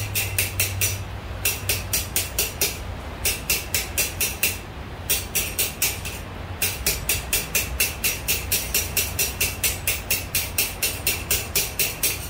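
Blacksmith's hand hammer striking steel on an anvil: quick, evenly spaced blows with a metallic ring, about four a second, in runs broken by brief pauses.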